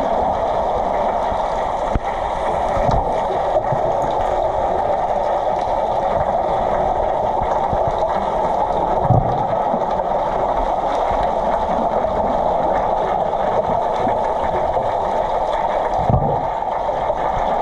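Underwater sound of a swimming pool picked up through a submerged camera's housing: a steady muffled rushing, with a few dull thumps and bubbling from players swimming and grappling nearby.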